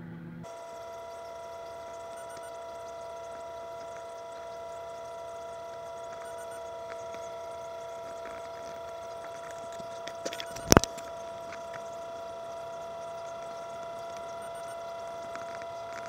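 Combine harvester running while its unloading auger discharges soybeans into a grain wagon: a steady mechanical whine made of several fixed high tones. A single sharp click stands out about eleven seconds in.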